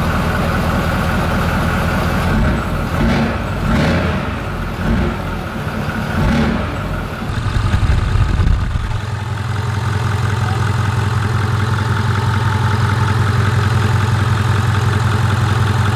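Ford 6.7 Powerstroke V8 turbodiesel fitted with a non-VGT S370 ball-bearing turbo, blipped several times over the first half. It then settles into a steady idle.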